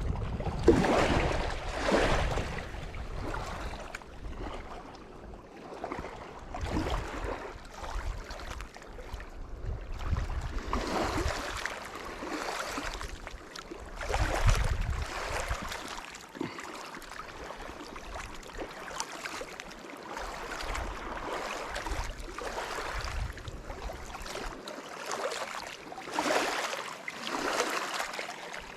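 Wind buffeting the microphone, with small waves lapping at the shore in uneven swells.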